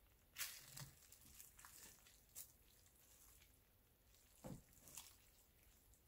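Metal tongs turning cooked collard greens and shredded meat in a plastic-lined slow cooker: a few faint clicks and soft wet squishes over near silence.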